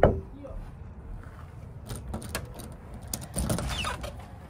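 The last knock on a wooden door at the very start, then a lever door handle and latch clicking about two seconds in as the door is opened. A brief squeak comes near the end.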